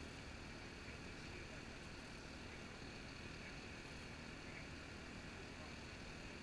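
Faint, steady outdoor ambience: an even hiss with a low rumble and no distinct events.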